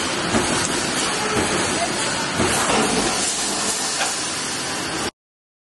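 Steady, hissing factory-floor noise with a few light clicks and faint voices in it; it cuts off abruptly about five seconds in.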